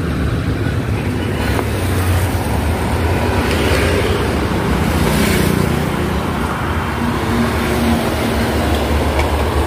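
Road traffic noise under a steady low rumble, swelling as a vehicle passes about five seconds in.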